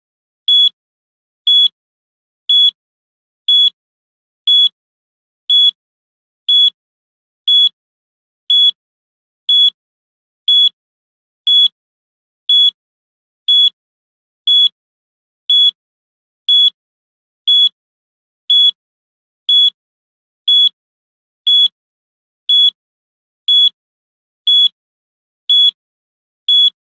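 Electronic countdown-timer beep sounding once every second: a short, high-pitched, identical beep each second, with silence in between.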